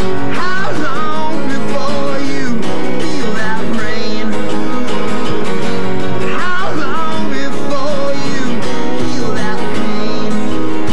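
Live acoustic song: a steel-string acoustic guitar strummed in a steady rhythm, with a wavering sung melody over it.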